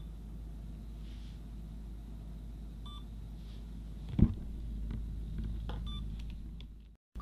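Camera being handled: short electronic beeps about every three seconds over a low steady hum, a single sharp knock about four seconds in, and the sound cutting out briefly near the end.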